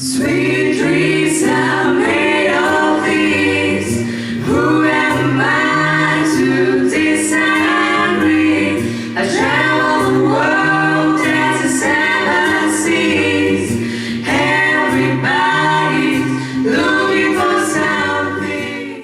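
A song: several voices singing over instrumental accompaniment, with a bass line stepping between held notes.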